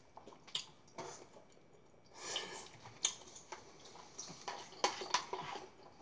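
A spoon clinking and scraping against a plastic bowl of food as the bowl is handled, with a few sharp taps and a brief scrape a couple of seconds in.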